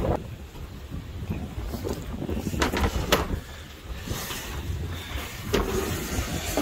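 Wind rumbling on the microphone, broken by three short, sharp knocks, two close together about two and a half and three seconds in and one more about five and a half seconds in.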